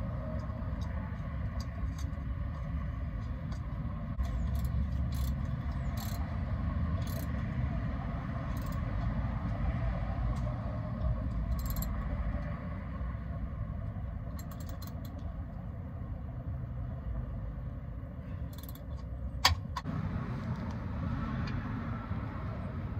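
Light clicks and scrapes of hands spinning a new oil filter onto its mount under a truck, over a steady low rumble. One sharp click near the end.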